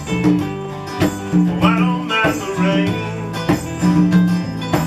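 Live band playing a song, in a stretch between sung lines.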